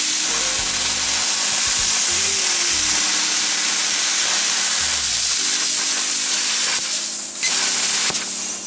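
Vevor CUT-50P handheld plasma cutter cutting through 1/8-inch steel diamond plate: a loud, steady hiss of the plasma arc and air jet, dipping briefly about seven seconds in and cutting off near the end.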